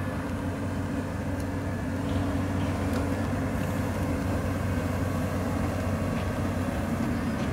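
Caterpillar 320D long-reach excavator's diesel engine running steadily under load as the long arm digs its bucket into a pile of soil, with a few faint clicks.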